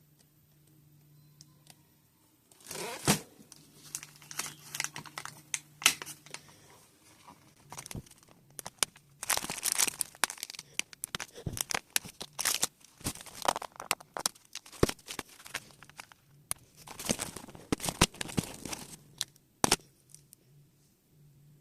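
Toy packaging being torn open and crinkled by hand, starting about three seconds in: irregular tearing and crackling rustles with short pauses, stopping shortly before the end.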